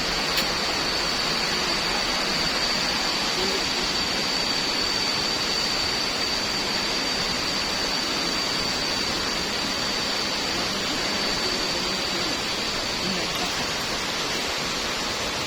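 Steady rushing of a waterfall. A thin, steady high-pitched tone sounds over it and fades out near the end.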